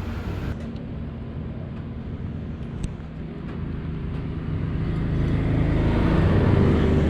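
A motor vehicle's engine running with a low, steady hum, growing louder over the last few seconds.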